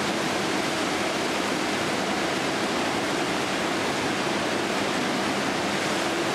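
Steady, even rushing noise of factory machinery, with a faint low hum in it and no separate knocks or voices.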